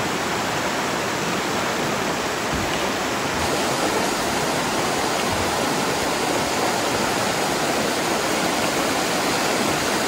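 Shallow, boulder-strewn mountain brook rushing over rocks in small rapids: a steady, even rush of water.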